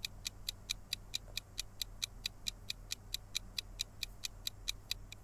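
Quiz countdown-timer sound effect ticking steadily and quickly, about five or six ticks a second, counting down the time to answer.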